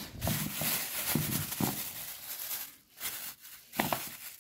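Thin plastic bags rustling and crinkling as rubber parts are pulled out of them, then a few light knocks as the rubber pieces are set down on a wooden floor.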